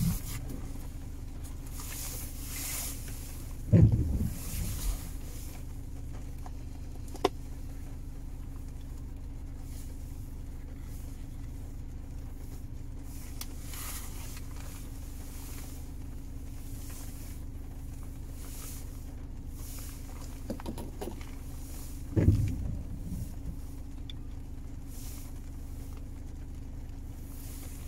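Steady low hum inside a car's cabin as it sits idling in the rain, with the windscreen wiper swishing across the glass now and then. Two dull thumps, about four seconds in and again near twenty-two seconds, and a short click near seven seconds.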